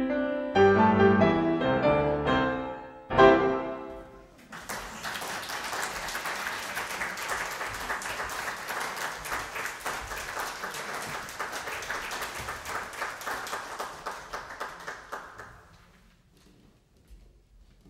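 Two grand pianos played together, four hands on each, end a piece with a loud final chord. About a second later the audience applauds for around ten seconds, and the clapping fades out near the end.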